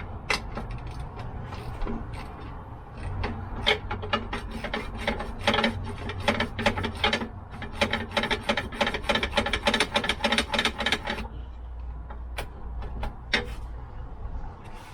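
Socket ratchet clicking in quick back-and-forth strokes as a bolt of the seat swivel base is undone. It stops suddenly about eleven seconds in, and a few separate clicks follow.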